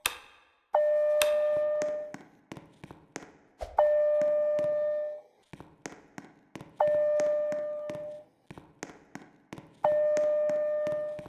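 Fire alarm notification appliances sounding an alert tone: a single steady chime-like tone that starts abruptly, lasts about a second and a half and fades, repeated every three seconds, four times, with sharp ticks in between.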